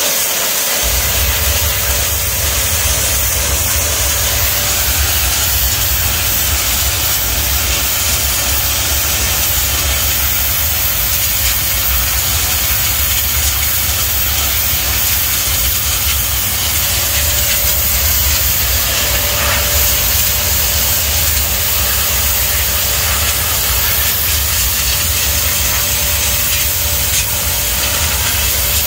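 Pressure-washer lance blasting a high-pressure water jet onto concrete paving stones, washing off moss and grime: a steady, loud hiss and spray over a constant low rumble.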